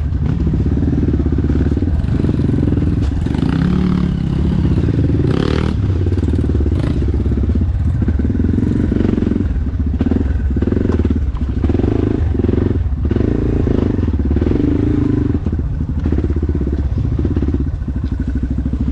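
Off-road dirt bike engine running hard, the throttle opening and closing in short pulses through much of it, with some clattering and knocks mixed in.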